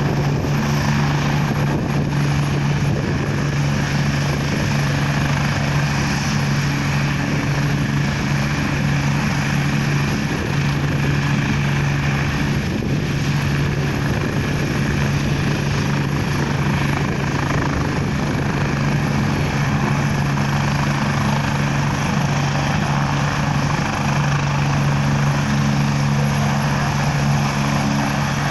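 Air ambulance helicopter running on the ground with its main rotor turning, ahead of take-off: a steady low turbine hum over a constant rush of rotor and engine noise, holding level without spooling up.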